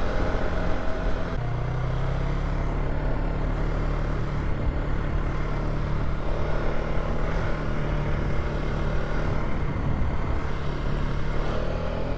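Polaris ATV engine running steadily while riding a dirt trail, stepping up in pitch about a second and a half in as it speeds up.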